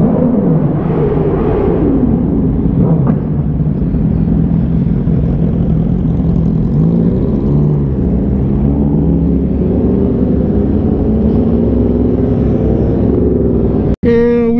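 Yamaha R1's inline-four engine running while riding, its pitch falling and rising with throttle and gear changes as the bike slows into traffic.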